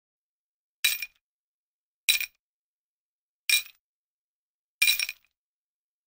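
Four short, bright clinks a little over a second apart, each ringing briefly.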